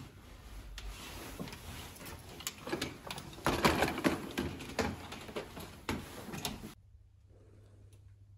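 Hotel room door lock and knob clicking as the door is unlocked and opened, then the rustle of a nylon down jacket brushing past the microphone, loudest about halfway through. The sound drops away abruptly near the end, leaving only a faint hum.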